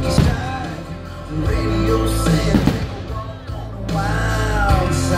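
Rock music with a singing voice and drums.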